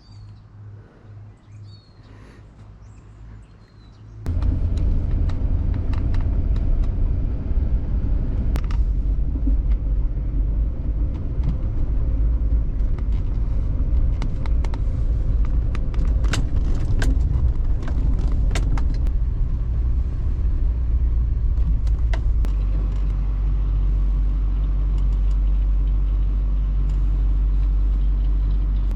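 A vehicle's engine running low and loud, with scattered rattles and knocks; it gets much louder about four seconds in after a quieter start.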